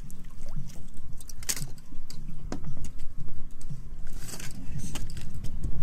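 Fishing boat's engine running with a low steady hum, with scattered sharp clicks and knocks over it.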